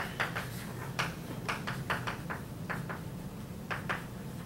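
Chalk tapping and scratching on a chalkboard as letters are written: a quick, irregular string of sharp clicks, about a dozen, over a steady low room hum.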